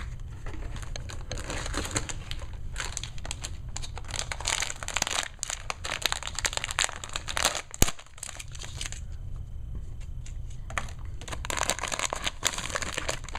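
Crinkling and rustling of a foil HeroClix blind-bag booster pack being handled and torn open by hand. There is one sharp click about eight seconds in and a short quieter gap before the crinkling picks up again near the end.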